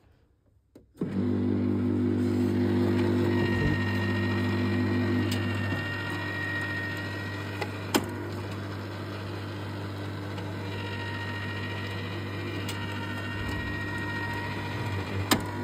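Necta Koro Max Prime coffee vending machine's water pump starting suddenly about a second in and running with a steady buzz, trying to fill the empty boiler, which does not fill by itself. The buzz drops a little in level about halfway, with a few sharp clicks along the way.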